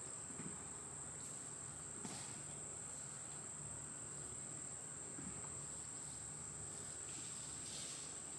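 Chorus of insects trilling steadily at one high pitch, without a break.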